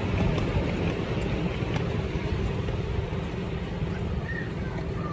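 Miniature railway passenger carriages rolling along the track, a steady low rumble of wheels on rails that slowly fades as the train moves away.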